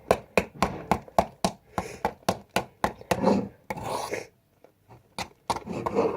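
A utensil stirring a foamy glue and shaving-foam slime mix in a dish, making a quick run of clicking, scraping taps, about three a second, with a short pause near the end.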